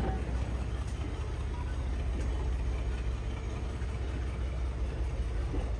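An engine idling with a low, steady rumble.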